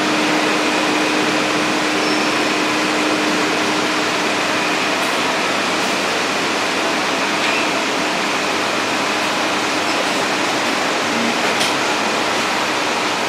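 Steady, even rushing noise of fans and air handling, like a display cabinet or air conditioner running, with a low hum that stops about five seconds in.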